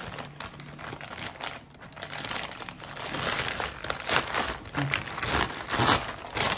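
Packaging crinkling and rustling as a delivered package is handled and unwrapped. The rustles are irregular and grow louder and busier in the second half.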